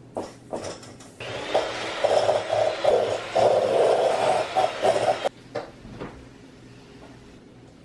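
Kitchen tap running hard into the sink for about four seconds, switched on and off abruptly. A few knocks and clinks of kitchenware come just before and after it.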